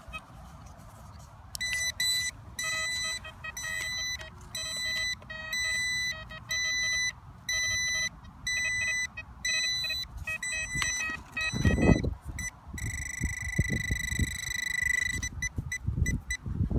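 Metal detector's electronic target tone beeping about twice a second over a buried relic, then holding as one steady tone for a couple of seconds before breaking up again. Dull knocks and rustling of soil being handled come around the middle and near the end.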